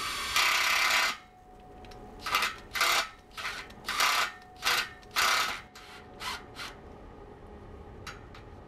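Cordless impact driver sinking a self-tapping screw through a conduit strap into a steel gate post: one loud run of under a second, then a series of short spurts of the tool.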